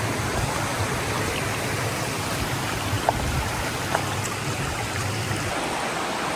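Waterfall rushing steadily, a continuous noise of falling and flowing water.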